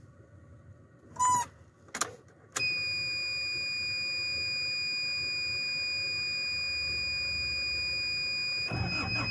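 Ignition switched on in a BAW Fenix dump truck cab: clicks and a short beep, then a steady high-pitched dashboard warning buzzer sounds from about two and a half seconds in. Near the end the starter begins cranking the cold engine under the buzzer, on a second start attempt.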